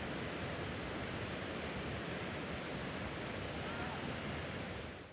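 Steady wind noise buffeting the microphone outdoors, a rushing hiss with a heavy low rumble, fading out at the very end.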